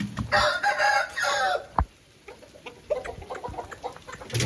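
Aseel chickens calling: a loud rooster call of about a second and a half near the start, then softer short clucks. A single sharp click comes just after the long call.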